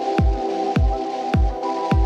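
Background electronic music with a steady kick-drum beat, just under two beats a second, over sustained synth chords.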